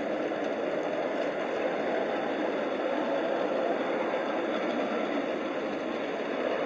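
Steady running noise of a ridden 5-inch gauge miniature train, a small scratch-built locomotive with a rider car and carriages rolling along the track.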